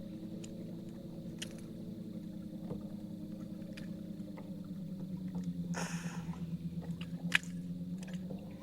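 Boat motor humming steadily at an even pitch, with scattered small clicks and a brief hiss about six seconds in.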